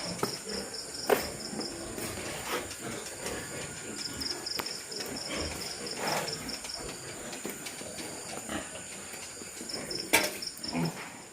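Pig-pen sounds: pigs grunting and shuffling, with scattered knocks and two sharper knocks, one about a second in and one near the end. Three runs of fast, evenly pulsed insect chirping, like a cricket, come and go over the top.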